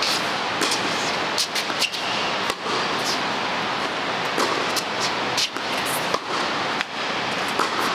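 Tennis point being played: scattered short, sharp racket-on-ball hits over a steady rush of noise.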